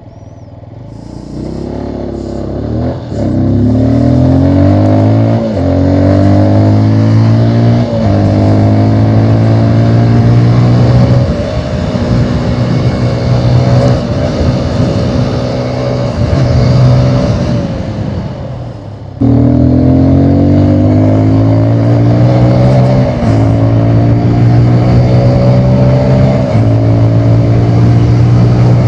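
Keeway RKF 125's single-cylinder engine through its stock exhaust, pulling up through the gears: the pitch climbs, drops at each shift, and climbs again. It eases off past the middle, then comes back in abruptly and climbs through the shifts once more.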